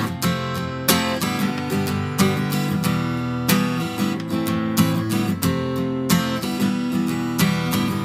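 Instrumental passage of a Mandarin pop song: strummed acoustic guitar over a steady bass line, with a strong beat recurring about once a second.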